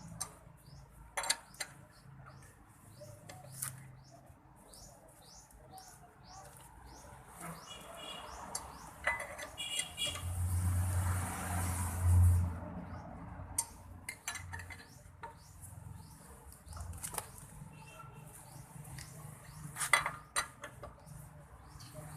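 Metal tools and parts clinking and clattering during a rear brake job, with scattered sharp clicks and short ringing clinks. About halfway through, a louder rumbling noise lasts a couple of seconds.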